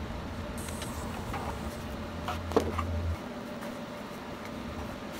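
TIG welding arc making fusion tacks on 304 stainless steel tubing at 200 amps: a steady low electric hum that stops abruptly about three seconds in, with a brief high hiss about half a second in. A few light clicks and taps of metal come just before the hum stops.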